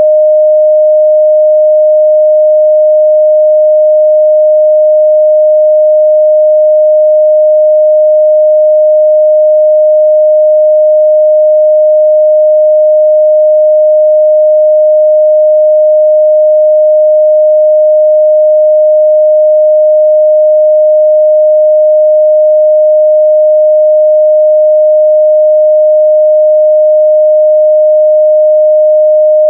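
A steady, loud 614 Hz sine-wave test tone, a single pure pitch held unchanged, used to check the midrange response of speakers and headphones.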